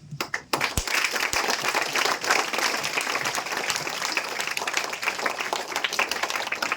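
Audience applauding: many people clapping together, beginning with a few scattered claps and filling out about half a second in.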